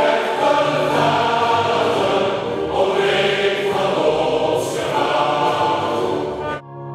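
Many voices singing an anthem together as a choir, with musical accompaniment. Near the end the singing cuts off abruptly and gives way to a steady held chord.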